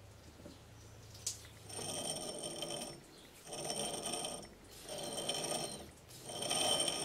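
A lathe chuck holding a grinding wheel is turned by hand in four pushes about a second and a half apart, the spindle gearing whirring with each turn, after a single click about a second in. The chuck is being turned to check the wheel's runout against a dial indicator.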